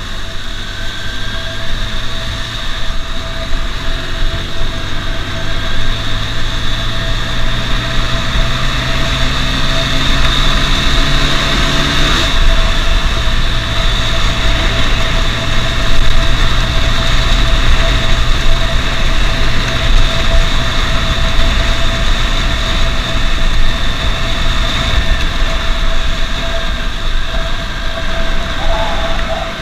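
Motorcycle engine running while under way, its pitch climbing slowly and then dropping suddenly about twelve seconds in at a gear change, before holding steady again. Wind rush on the rider's camera microphone runs over it throughout.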